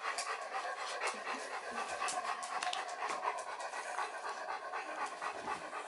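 Dogs panting steadily.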